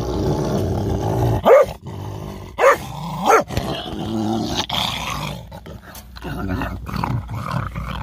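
Beagles growling low and rough, broken by three sharp barks about a second and a half, two and a half, and three and a half seconds in; the growling starts up again near the end.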